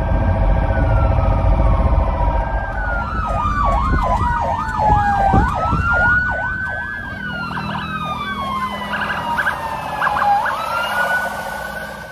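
Several emergency vehicle sirens sounding together: a slow wail sliding down and back up, overlapped by a fast warble of about three sweeps a second, over a low rumble. It fades out near the end.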